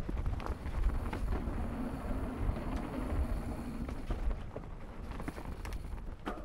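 Mountain bike rolling fast down a dirt singletrack: a steady rumble of tyres and wind on the rider-mounted microphone, with short knocks and rattles from the bike over bumps and roots.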